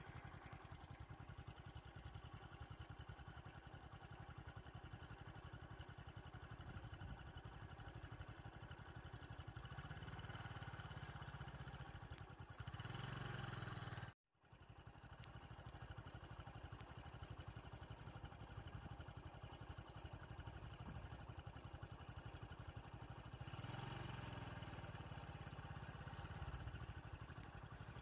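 A motor vehicle engine running steadily at low revs, growing louder twice for a few seconds. The sound cuts out completely for a moment about halfway through.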